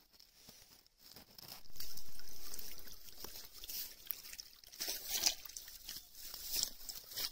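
Shallow water sloshing and splashing as someone steps through the muddy, grassy margin of a pond. There is a louder swell about two seconds in, then scattered small splashes and trickles.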